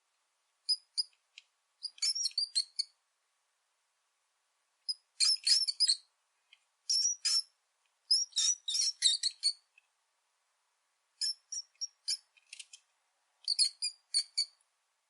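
Rat squeaking: rapid, high-pitched chirping squeaks in short bursts, separated by silent pauses of a second or two.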